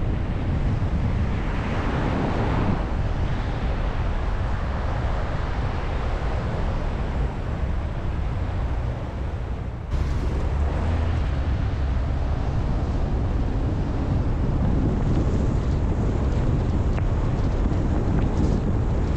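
Wind rushing over a car-mounted camera's microphone along with the hiss of tyres on a wet, slushy road as the car drives. The noise sags briefly before the middle and jumps back up abruptly about ten seconds in.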